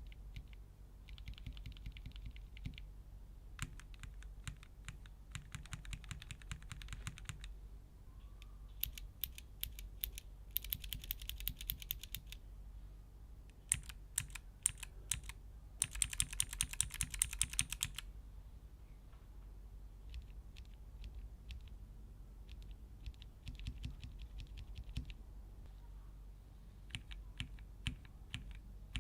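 Keys on a Keychron K Pro mechanical keyboard typed on rapidly in several separate runs of a few seconds each. The clicks sound brighter or duller from one run to the next.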